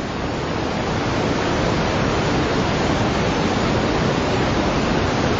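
Floodwater rushing: a steady, even roar of flowing water that swells during the first second and then holds level.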